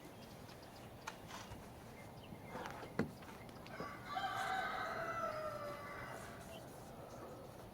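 A rooster crowing once, a single long cock-a-doodle-doo starting about four seconds in, preceded by a couple of light knocks.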